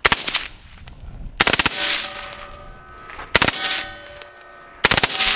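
Full-auto AR-pattern rifle firing four short bursts, each a quick string of a few shots, spaced about one and a half to two seconds apart.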